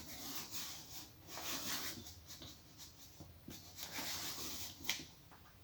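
Opening tool scraping and rubbing irregularly as it is drawn through the iMac display's adhesive strip along the screen edge, with a short click near the end. The glue is still stiff and resisting the tool.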